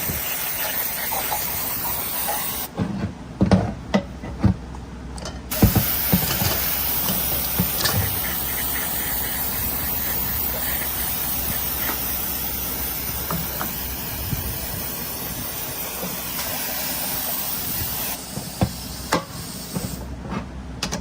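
Long hissing blasts of a pressurised spray cleaning transmission valve-body parts to flush out metal shavings from machining. The hiss cuts off about three seconds in, a few light knocks of parts being handled follow, then it starts again and runs until near the end, where it stops with a couple more knocks.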